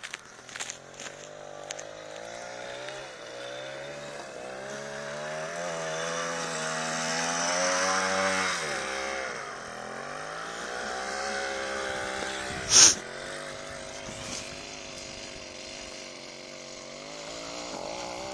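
Small go-kart engine revving up and down as the kart drifts on ice, its pitch repeatedly rising and falling. One short, sharp bang about thirteen seconds in.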